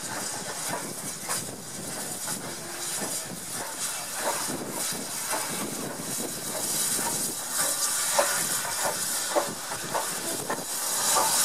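Steam tank locomotive hissing steam, a dense steady hiss that swells about two-thirds of the way through and again near the end.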